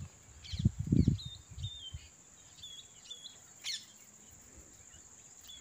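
Small birds calling with short high chirps, several times. About a second in, low rumbling thumps on the microphone are the loudest sound.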